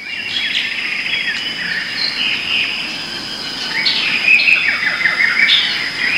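Several birds calling and chirping in quick, overlapping short notes and trills, over a steady high insect drone.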